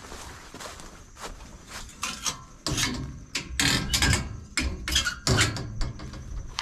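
Metal dog box door on the back of a pickup being unlatched and opened. From about two and a half seconds in, the latch and door clank and rattle in a quick run of sharp knocks.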